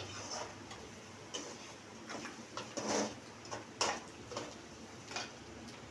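Onions frying in oil in a pan: irregular small crackles and ticks, with a couple of louder clicks about three and four seconds in.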